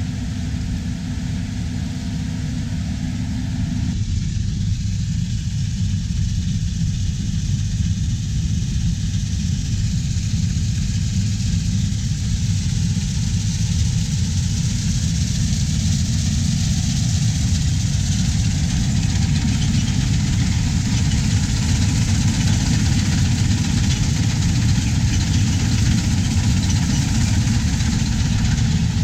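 Farm machinery engine running steadily, with a heavy low rumble. The sound changes abruptly about four seconds in, then grows slowly louder.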